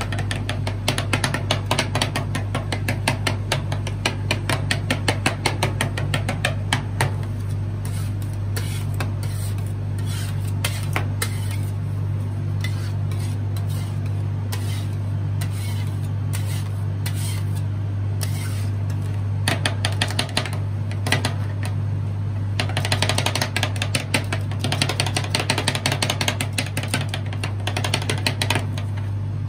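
Two metal spatulas chopping and scraping rapidly on the stainless-steel cold plate of a rolled-ice-cream machine, a fast run of sharp taps that thins out and nearly stops in the middle, then picks up again near the end. A steady low hum from the machine runs underneath.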